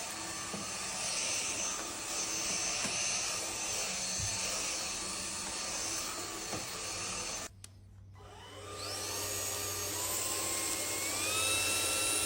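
Homeika cordless stick vacuum running with a steady hiss of suction and a motor whine. About seven and a half seconds in it is switched off, and a second later it starts again, its whine rising in pitch as the motor spins up, then holding steady.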